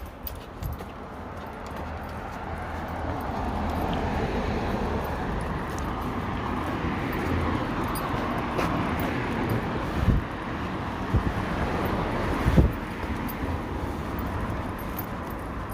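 A vehicle passing on a road, its noise slowly swelling and fading, with wind thumping on the microphone a few times.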